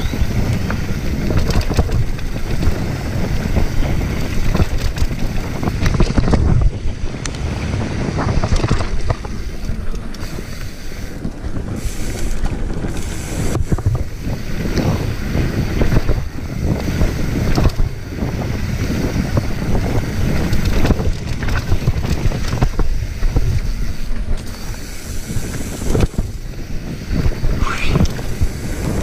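Wind rushing over the microphone and mountain bike tyres rolling fast over a dirt singletrack, with a steady low rumble and frequent knocks and rattles from the bike hitting bumps.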